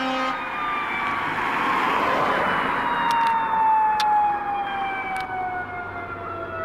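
A fire truck's siren passing close by: a short blast of a low, steady air horn ends just after the start, then the siren sounds one long wail that slowly falls in pitch, over the rush of the truck's engine and tyres going by about two seconds in.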